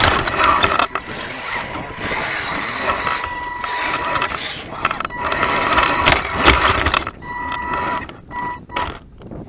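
Electric drive motor and gearbox of an Axial SCX10 radio-controlled rock crawler whining at a steady pitch as it climbs, with rough crunching and clicking of loose rock under the tyres. The whine stops and starts several times near the end as the throttle is blipped.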